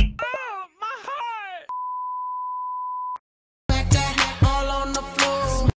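A voice gliding up and down in pitch for about a second and a half, then a steady high-pitched beep like a censor bleep for about a second and a half. After a brief silence, a couple of seconds of pop music cut in and stop suddenly.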